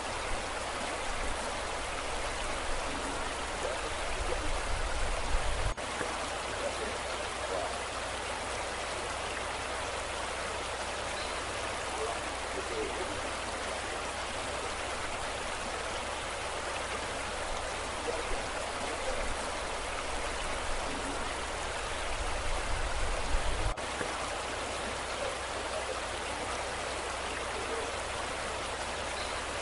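Steady rushing roar of a torrent of muddy floodwater. Twice a low rumble builds up over a few seconds and then cuts off suddenly.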